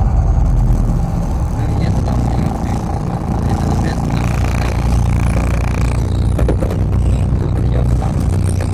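Steady low rumble of a vehicle engine running, with street noise.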